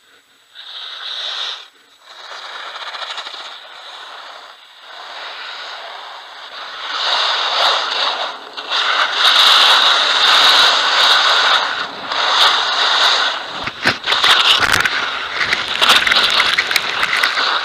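Skis scraping and hissing over hard-packed snow during a downhill run, growing louder as speed builds from about seven seconds in. From about fourteen seconds in, irregular knocks and tumbling as the skier falls.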